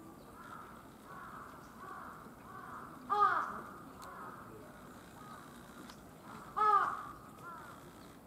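A crow cawing twice: one loud, short caw about three seconds in and another about three and a half seconds later.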